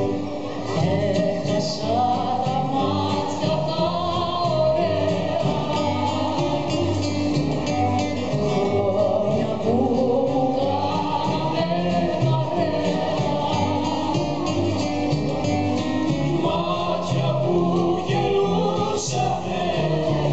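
A Greek laïko song performed live: singing over guitar accompaniment, with several voices at once.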